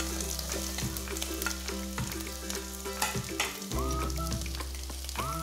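Sliced onion and garlic sizzling in hot olive oil in a stainless steel pot, with light clicks and scrapes of a utensil as more onion is tipped in.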